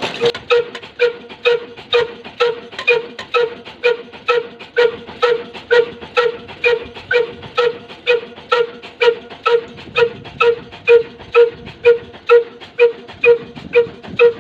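Slow-speed 'Kala' diesel engine, 18–20 HP and rated at 300 RPM, running steadily: evenly spaced exhaust beats, a little over two a second, each with a ringing note.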